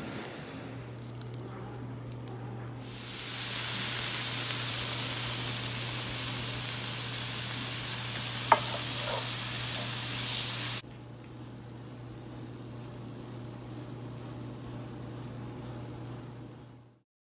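Diced onion and garlic sizzling loudly in a frying pan, starting about three seconds in, with one sharp tap near the middle. The level drops abruptly about eleven seconds in to quieter sizzling of zucchini slices frying with the onions, over a steady low hum.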